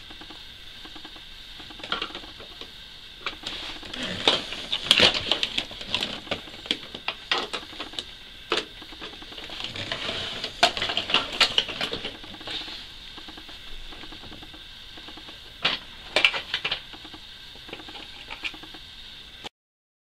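Scattered plastic clicks and rattles as the hose and wand of a Hoover PurePower upright vacuum cleaner are handled, over a steady background hiss; the sound cuts off abruptly just before the end.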